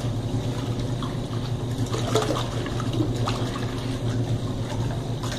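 Colormaq Pioneer tanquinho washing, its vertical pulsator on the tub wall churning the soapy water and clothes. A continuous splashing and sloshing of water runs over a steady low hum.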